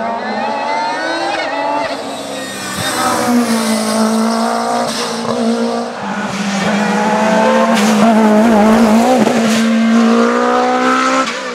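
Racing car engine revving hard under acceleration. The pitch climbs and drops sharply at gear changes, about three times.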